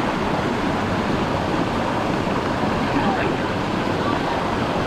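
Steady rush of a waterfall and river, an even wash of water noise.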